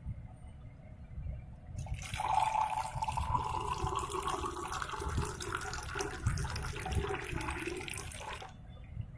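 Juice being poured into a glass over ice cubes: a steady splashing, gurgling pour that starts about two seconds in and stops just before the end, its pitch rising slightly as the glass fills.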